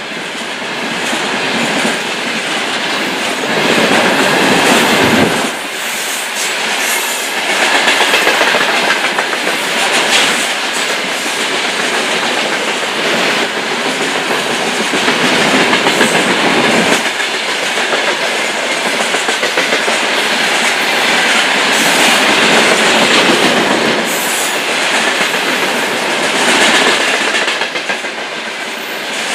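A train running past on the track: continuous rolling wheel noise on the rails with the clickety-clack of wheels crossing rail joints.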